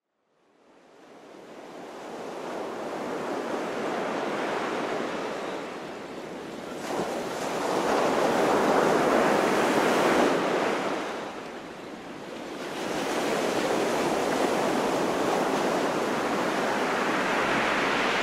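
Ocean surf: waves washing in, the roar fading in at first and then swelling and easing in slow surges.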